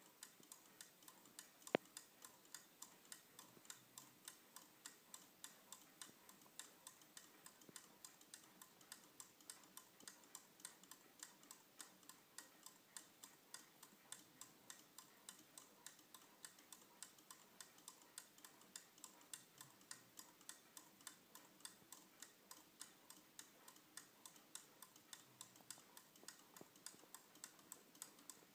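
A small Swiss/German bouncing-girl novelty wall clock ticking: its newly repaired movement runs in a quick, even tick of about three ticks a second. One sharper, louder click comes about two seconds in.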